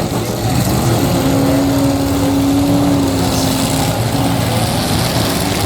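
Several demolition derby cars' engines running and revving at once, one held at high revs for about two seconds before it drops back.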